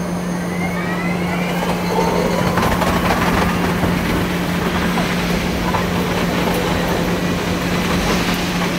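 Running noise inside a Keikyu electric train as it pulls away from the station, with a faint rising motor whine over the first few seconds and a steady low hum under it.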